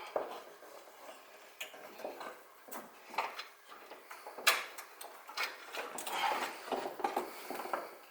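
Hand tools and metal engine parts clicking and clinking at irregular intervals, with one sharp metallic knock about halfway through.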